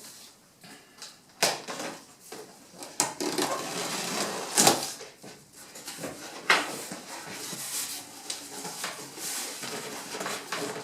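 Cardboard shipping box being opened by hand: flaps and cardboard packing rustling and scraping, with several sharp knocks of cardboard against cardboard.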